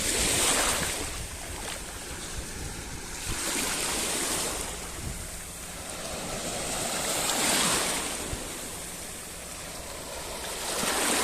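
Sea waves breaking on the shore, the surf swelling and falling back about every three to four seconds.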